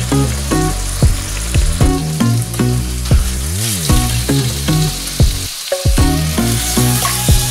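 Pork chops sizzling steadily in hot oil in a nonstick frying pan while they are turned over with a knife and a wooden spatula. Background music with a repeating melody plays alongside.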